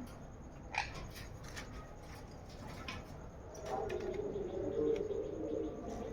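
Caged pet birds calling: a short sharp chirp just under a second in, then from about four seconds a low, wavering, coo-like call that carries on.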